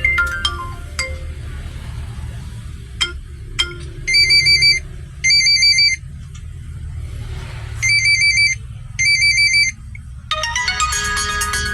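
Vivo Y71 phone ringtones playing from the phone's speaker. A descending string of chime notes ends about a second in. Then a trilling electronic ring sounds in pairs, twice over. Near the end a new, busier melodic ringtone starts. A steady low hum and two clicks sit underneath.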